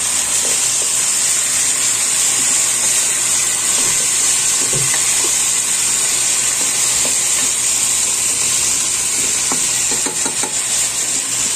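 Chicken pieces and potato cubes sizzling steadily in hot oil in a pot, stirred with a spatula that knocks and scrapes lightly against the pot.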